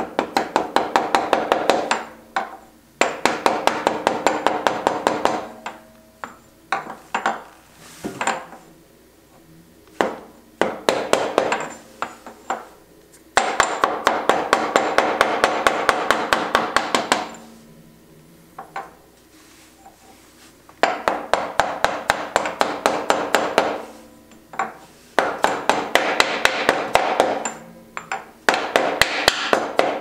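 Rubber mallet tapping a socket to drive a new countershaft seal into a KTM 250 SX engine case. The taps come rapidly, several a second, in runs of a few seconds with short pauses, and the metal socket rings with each strike.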